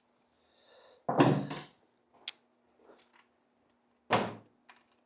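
Heavy knocks in a workshop: two close together about a second in, a light click shortly after, and a single thud about four seconds in.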